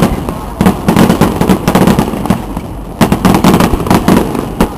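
A fireworks display going off in dense clusters of sharp bangs and crackling reports, with the thickest volleys about half a second in, around three seconds in and near the end.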